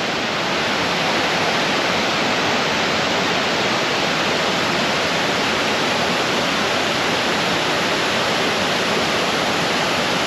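Creek waterfall rushing, a loud, steady, unbroken wash of falling water.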